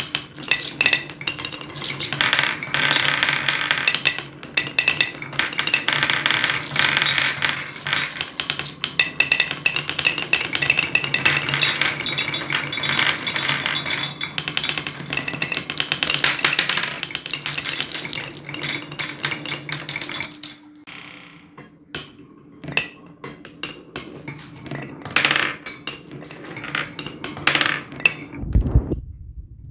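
Many glass marbles rolling and clattering along a wooden marble-run track, a dense rattle of clicks and knocks over a steady low hum. After about twenty seconds it thins to scattered single clicks as fewer marbles run.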